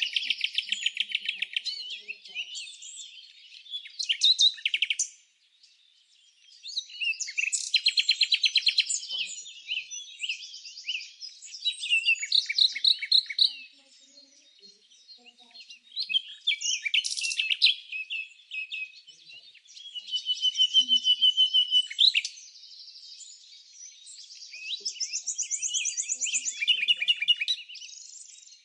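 Songbirds singing: phrases of rapid high trills and chirps lasting a few seconds each, with short pauses between them.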